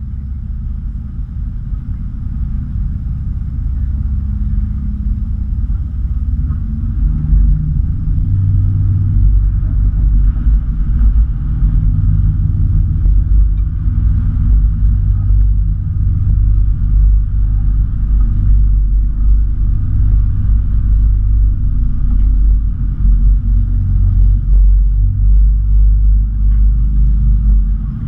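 Tour boat's engine running with a steady low rumble, heard on board, growing louder over the first several seconds and then holding steady.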